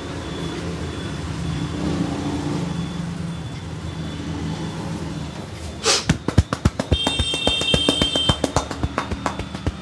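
Low steady street traffic noise, then about six seconds in a rapid run of sharp slaps begins, several a second: hands slapping and tapping on a head during a massage.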